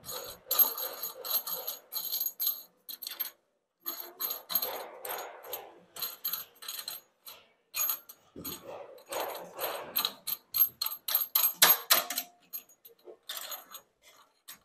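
Faucet mounting hardware being hand-tightened onto the faucet under a metal sink: quick, irregular metallic clicks and clinks with scraping between them, broken by a couple of short pauses.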